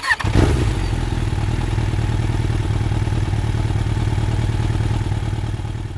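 An engine running steadily at idle with an even low pulse, fading a little near the end.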